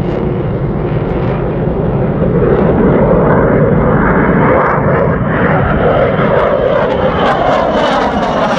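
Twin-engine F/A-18-family fighter jet flying low and climbing towards and over the listener: loud, steady jet noise that grows louder and harsher from about two seconds in. Near the end the hiss begins to sweep in pitch as the jet comes close overhead.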